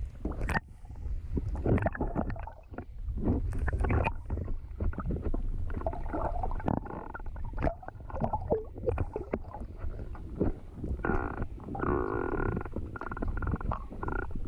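Muffled underwater rumble with irregular knocks and sloshing as lake water moves around a submerged camera's housing. A steady hum with several held tones joins about eleven seconds in.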